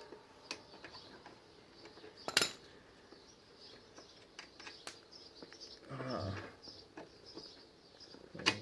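Scattered sharp metallic clicks and clinks of spanners and sockets on the motorcycle's rear brake caliper bolts, the loudest about two and a half seconds in. A brief low mumble of a voice comes around six seconds in.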